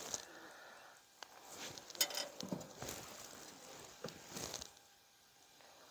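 Faint, scattered small clicks, taps and rustles of fishing tackle being handled, the loudest cluster about two seconds in and a rustle about four and a half seconds in.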